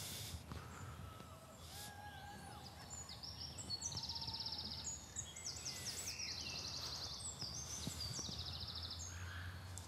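Songbirds singing: several fast, high trills and short whistled notes, the trills strongest about four, seven and nine seconds in, over a low steady hum.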